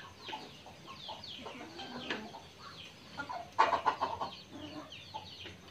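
Chickens clucking, with many short, high, falling calls, and a louder burst of sound about three and a half seconds in.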